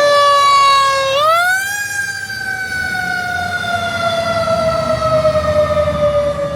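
Fire truck siren wailing loudly. Its pitch is sinking at the start, jumps up quickly about a second in, then winds slowly down through the rest.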